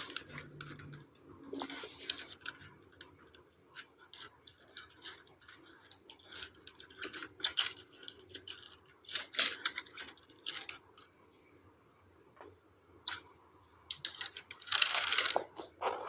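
Computer keyboard being typed on fast: irregular runs of key clicks broken by short pauses, with a dense flurry near the end.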